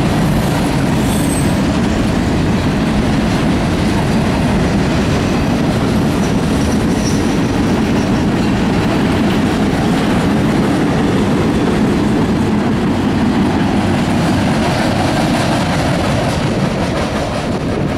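Norfolk Southern freight train's hopper and gondola cars rolling past at speed, a steady loud noise of steel wheels on the rails, easing slightly near the end.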